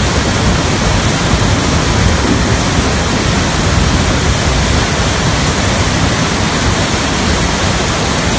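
Muddy floodwater surging through a concrete channel beneath a bridge: a loud, steady rush of water.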